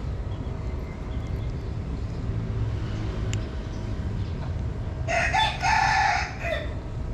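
A rooster crows once, about five seconds in, lasting about a second and a half, over a steady low background rumble.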